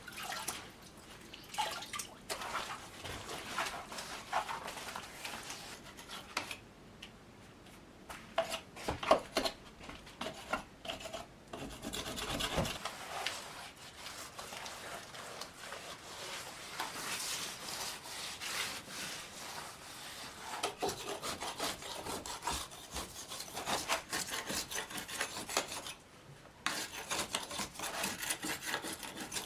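Hand scraper scraping water-softened wallpaper and old cement residue off a wooden log wall in quick, irregular strokes, with brief pauses. At times a wet rag rubs over the wood.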